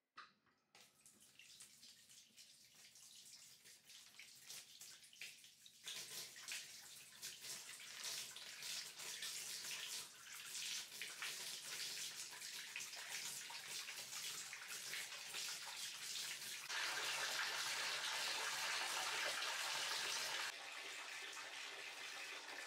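Water from a bathtub tap pouring into a plastic tub, starting just after the tap is turned on. The rush grows louder in steps, is loudest about three quarters of the way through, then drops back a little near the end.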